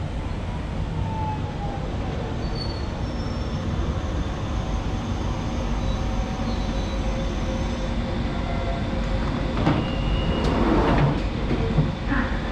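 London Underground 1992 Stock Central line train running into the platform and slowing to a stop, with a steady rumble of wheels and motors and faint tones falling as it slows. About ten seconds in there is a short, louder burst of noise as the doors open.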